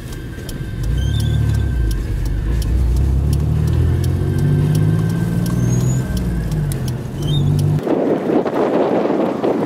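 Car engine and road noise heard from inside the cabin, growing louder about a second in as the car gets moving. Near the end it cuts abruptly to wind buffeting the microphone.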